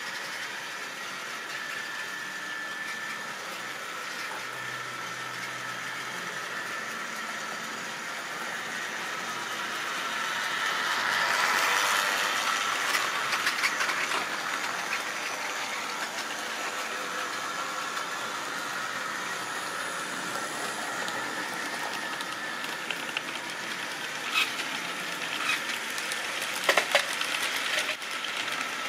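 A model railway train running round the track, its running sound growing louder as it comes near about twelve seconds in, then carrying on steadily, with a few sharp clicks from the wheels near the end.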